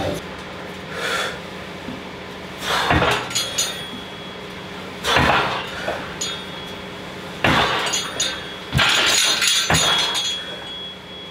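Rubber bumper plates clanking on the steel loading pin of a belt squat machine as they are handled, with several sharp metallic clanks a couple of seconds apart.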